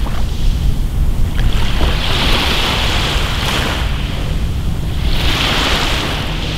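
Small sea waves breaking and washing up a pebble beach, the foam hissing in two surges over a steady low rumble.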